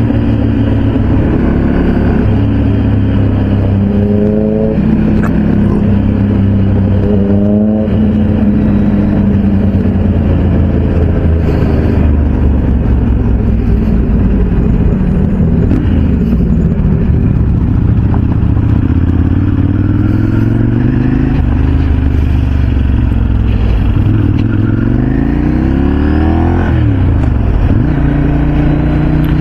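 Motorcycle engine and exhaust on the move at road speed, a steady drone with a few bursts of acceleration where the pitch climbs and then drops at gear changes.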